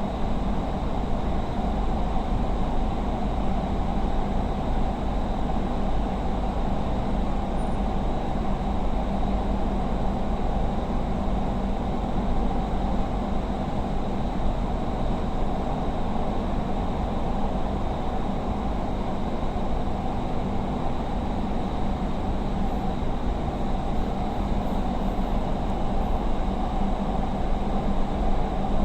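Steady running noise inside a Doha Metro train carriage moving between stations: an even low rumble with a constant faint high whine.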